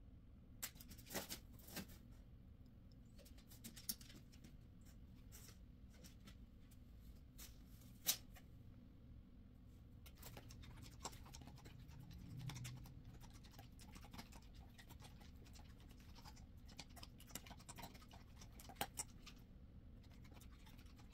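Near silence with scattered faint clicks and taps of small cosmetic items being handled during makeup application, the sharpest tap about eight seconds in.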